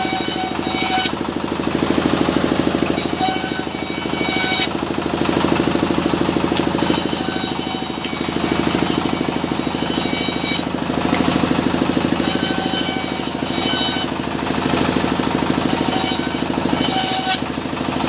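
Engine-driven sawmill running steadily with a pulsing low drone, while the saw cuts through small mahogany logs in repeated stretches of harsh, high-pitched hissing a few seconds apart.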